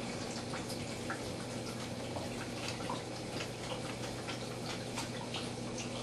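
Faint, irregular drips and ticks of water over a steady low hum.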